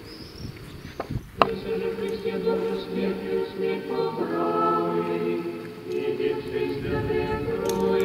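A choir singing unaccompanied in slow, long-held chords, like church choral chant. There is a single sharp knock about a second and a half in.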